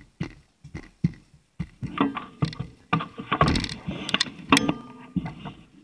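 Irregular clattering and knocking inside a train carriage, the bicycle and the carriage rattling, getting busier about two seconds in with a few brief tones mixed in.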